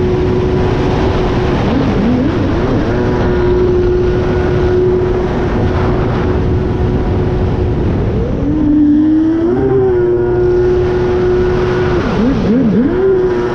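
Jet ski's Kawasaki 1100 two-stroke engine running loud at high, steady revs at speed, over a constant rush of water and wind. Its pitch dips and wavers briefly about two seconds in, again about two-thirds of the way through, and near the end, before settling back to the steady note.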